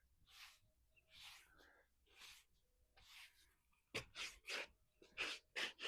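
Faint rhythmic scraping strokes of a hand tool on a hard surface, about one a second, turning quicker and louder about four seconds in.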